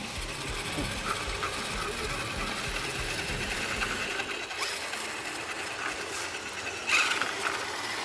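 Electric RC crawler trucks driving through mud, their motors and geared drivetrains whining steadily, with a brief louder clatter about seven seconds in.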